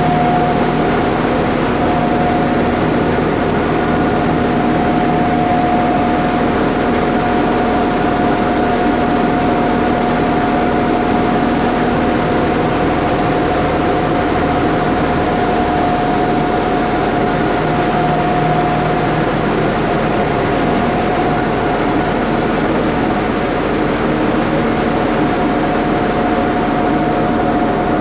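A heavy machine's diesel engine running steadily at a constant speed, with a steady high whine running through the engine noise.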